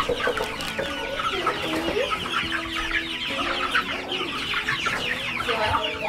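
A crowded flock of young Cornish cross meat chickens peeping and cheeping, many short falling calls overlapping without a break.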